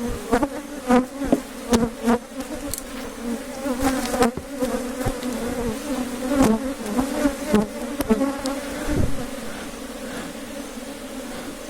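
A mass of honey bees buzzing around an opened hive, a steady hum, with many short clicks and knocks over it, most of them in the first half.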